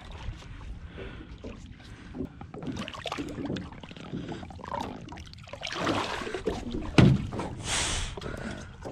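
Water splashing and sloshing at a boat's side as a hooked catfish thrashes at the surface and is grabbed by hand and hauled aboard, with one sharp thump about seven seconds in.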